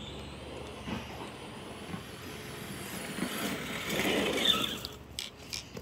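RC car driving up the concrete sidewalk: motor whine and tyres rolling, growing louder as it comes close about four seconds in, then fading.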